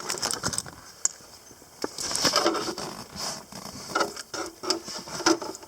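Handling noises from working the passenger airbag disconnect switch and its plug out of the dash: scattered sharp clicks with a rustling scrape in the middle.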